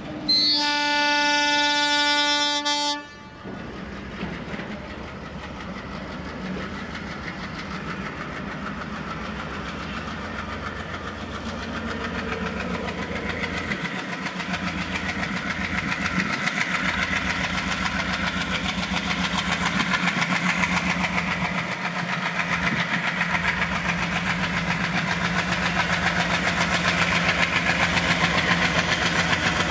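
WDM-3D diesel-electric locomotive sounds one long horn blast of about three seconds, which cuts off sharply. Its ALCO diesel engine then works hard as it pulls a passenger train away, rumbling louder and louder as it draws near and passes, with a steady clatter of wheels on the rails.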